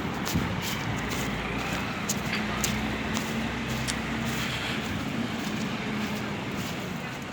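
Mercedes-Benz O-400 RSD coach's diesel engine running steadily, a low drone with scattered light clicks and rattles over it.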